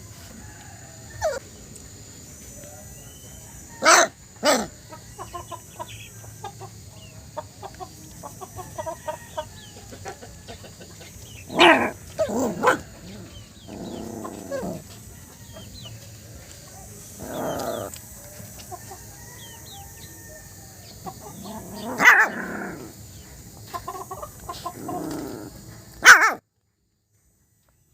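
Small puppy barking and yapping in scattered short bursts, with fainter squeaky calls in between; the sound cuts off abruptly near the end.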